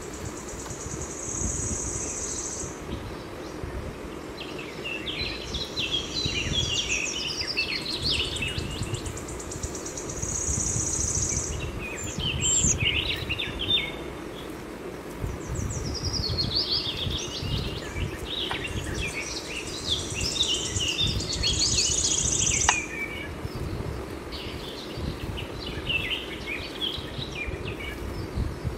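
Birds chirping and singing in repeated bursts of quick calls. A high, steady buzz sounds three times for a second or more each, over a low background rumble.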